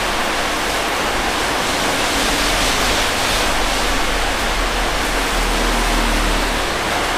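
Steady, even hiss with no distinct events: constant background noise, no separate knocks or beeps standing out.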